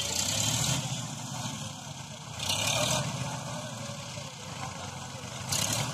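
Sonalika tractor's diesel engine running steadily under load, pulling a loaded trailer through soft earth. Short rushes of hiss come and go three times: at the start, about halfway, and near the end.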